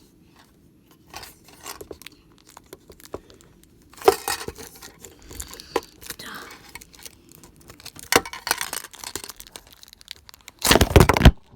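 Plastic shrink wrap being torn and crinkled off a Pokémon card tin, with scattered clicks and taps from handling it, and a louder burst of tearing and rustling near the end.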